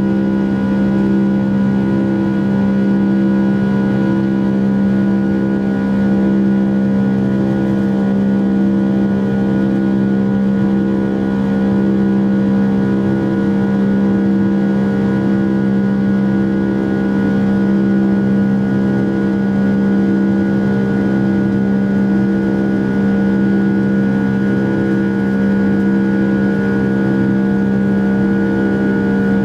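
Boeing 757-200's turbofan engines at climb power, heard from inside the cabin over the wing: a steady drone with a strong low hum and a higher whine, and a slow, regular pulsing a little more than once a second.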